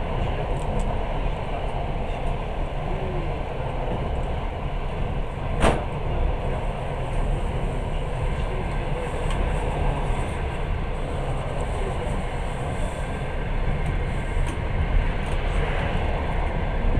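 Passenger train running on the rails, heard from inside the carriage as a steady rumble, with one sharp knock about six seconds in.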